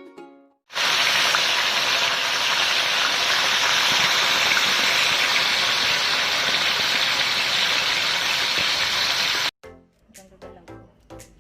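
A steady, loud rushing hiss that starts abruptly just under a second in and cuts off abruptly near the end. Plucked-string music follows it.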